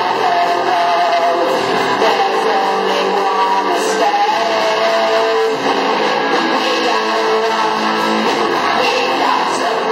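A school rock band playing a guitar-led rock song live.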